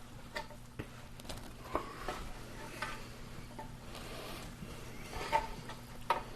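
Scattered light clinks, knocks and scrapes of a utensil against an Instant Pot's steel inner pot as cut chicken is added to the simmering broth, over a faint steady hum.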